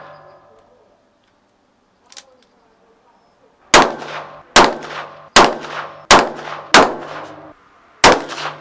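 A Ruger .357 Magnum revolver fired six times, the first five shots less than a second apart and the sixth after a short pause, with each shot ringing briefly afterwards. A faint crack comes about two seconds in.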